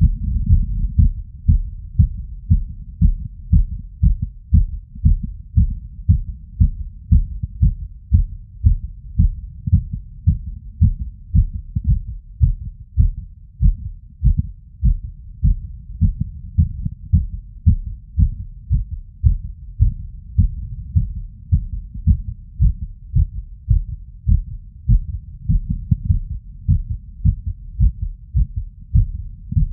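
Heartbeat heard through a stethoscope's diaphragm over the tricuspid valve area: a fast, steady train of low lub-dub thumps after exertion, in a heart with an arrhythmia.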